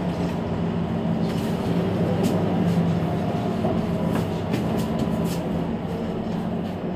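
Mercedes-Benz Citaro C2 Hybrid city bus running, a steady low hum with a few light clicks and rattles.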